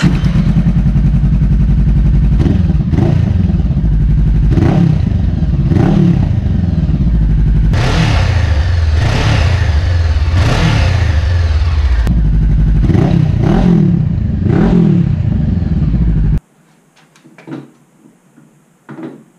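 Honda CB500X parallel-twin engine idling and being blipped repeatedly, each rev rising and falling in pitch, heard through an aftermarket slip-on muffler and through the stock muffler in turn for comparison. The engine sound stops abruptly about 16 seconds in, leaving a few faint knocks.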